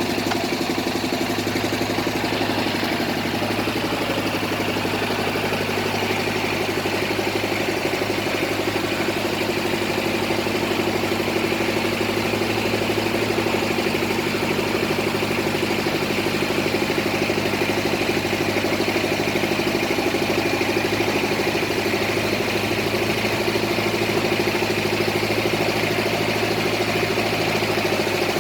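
Engine of a bored-pile drilling rig running steadily at a constant speed.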